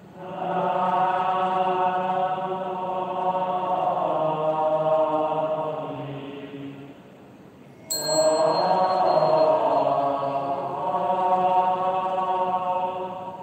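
Slow Buddhist devotional chanting in long, held notes, in two phrases; about eight seconds in, the second phrase starts with a sudden sharp strike and a brief high ringing tone.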